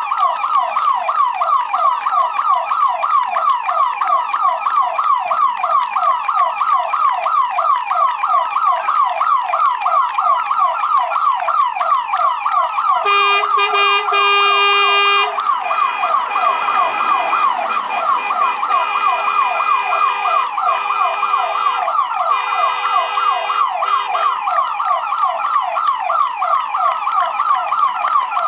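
Emergency vehicle siren on a fast yelp, about four rising sweeps a second, sounding throughout. About halfway through, a vehicle horn sounds steadily for about two seconds, followed by several shorter horn blasts over the next several seconds.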